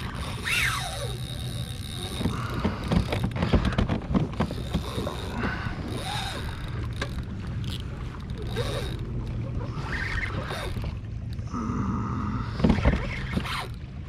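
Hobie Outback pedal kayak under way: water moving along the hull and irregular knocks and creaks from the pedal drive and gear on board, over a steady low hum. Several short sliding squeaks come and go.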